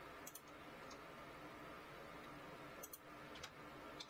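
Near silence with a handful of faint clicks from a computer mouse and keyboard keys, a pair shortly after the start and several more in the second half.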